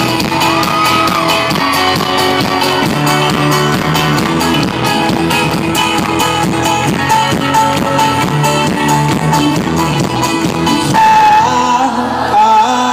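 Live folk-rock band playing loudly, with strummed strings over a fast, even beat. About eleven seconds in the beat drops away, leaving held, wavering notes.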